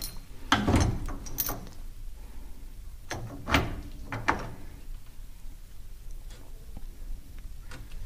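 A few short metallic clanks and scrapes from handling a bolt-type harmonic balancer puller fitted to a crankshaft vibration dampener. The loudest comes about three and a half seconds in.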